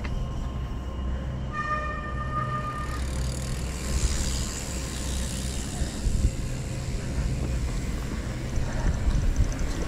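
Wind rumbling on the camera microphone, then mountain bike tyres rolling over a dirt and gravel track as the riders set off. A brief steady tone sounds about two seconds in, and a fast light ticking comes near the end.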